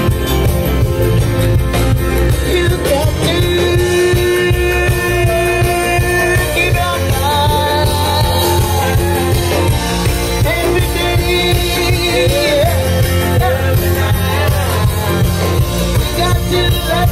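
Live band playing upbeat music on acoustic and electric guitars with a steady beat, a singer's voice coming in about three seconds in.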